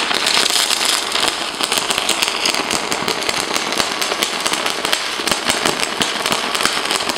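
Stick (MMA) welding arc of a ZELLER 480 aluminium-silicon electrode on thin aluminium sheet, crackling steadily with a dense run of sharp pops, at a current set around 70–80 A.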